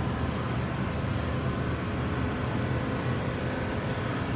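Steady low hum and hiss of supermarket background noise beside refrigerated meat display cases, with no distinct events.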